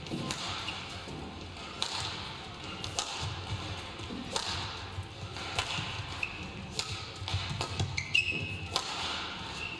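Badminton rally: a racket strikes the shuttlecock about once every second, eight or so hits in turn, with short high squeaks of shoes on the court floor around the middle and near the end.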